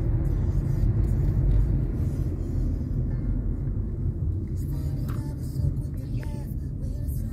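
Car driving, heard from inside the cabin: a steady low road-and-engine rumble that eases off a little a few seconds in.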